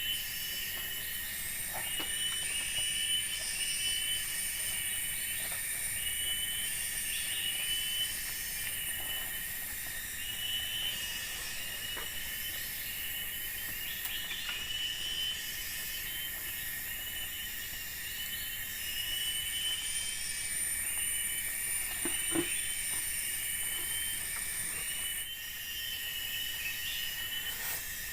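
Forest insect chorus: a steady high whine with pulsing chirps over it, and a higher buzz that joins in twice for several seconds. A few faint clicks are heard.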